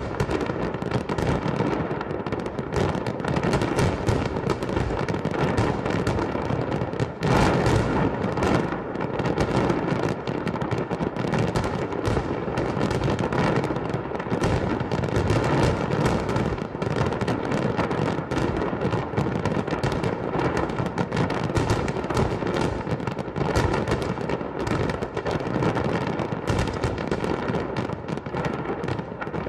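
Fireworks going off in a dense, continuous barrage of bangs and crackles with no pauses.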